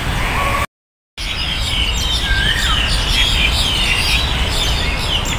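Several songbirds chirping and calling over one another in quick, high twitters, with one lower whistled note sliding down about two seconds in, over a steady low rumble. The sound drops out completely for about half a second about a second in.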